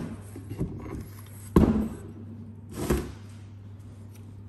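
Heavy aluminium cylinder head from a 1.8 F18D4 engine knocking against a plywood workbench as it is handled, two short knocks about a second and a half in and near three seconds, over a steady low hum.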